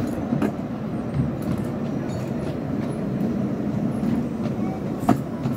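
Miniature railway train running on its track: a steady rumble with a few sharp clicks from the wheels, the loudest near the end.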